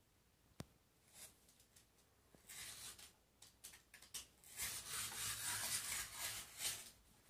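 Utility-knife (cutter) blade slicing through paper along a ruler, a scratchy rasping in several short strokes and then one longer cut of about two seconds near the end. A sharp tick comes just after the start.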